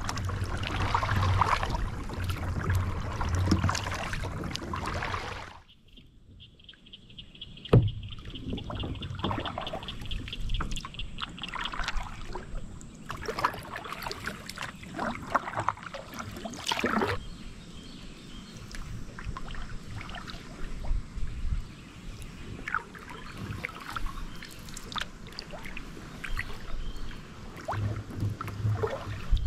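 Kayak paddling on calm water: the paddle blades dip and pull through the water in irregular splashes, with water dripping off the blades. A single sharp knock comes about 8 seconds in. The first five seconds hold a louder, steady rush that cuts off suddenly.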